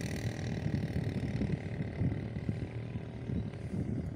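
Wind rumbling on the microphone, with the steady hum of a boat engine on the water fading out over the first two seconds.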